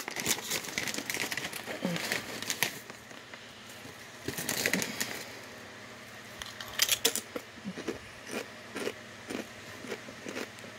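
Chip bag crinkling as a hand reaches in, then sea-salted kettle-cooked potato chips crunching in bursts as they are bitten and chewed, with short crunches about twice a second near the end.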